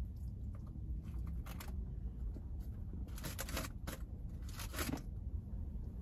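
A plastic fork scraping and rustling in a takeout food container, a few short scrapes, over a steady low hum.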